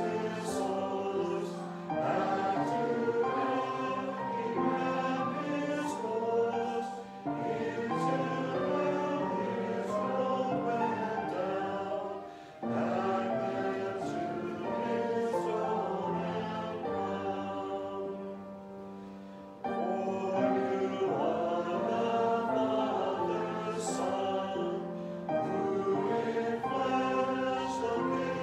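A choir singing a hymn in held, sustained phrases, with short breaks between phrases.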